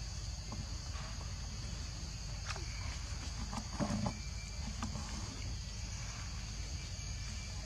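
Steady, high-pitched insect chorus, with a few soft clicks and a short louder rustle about four seconds in.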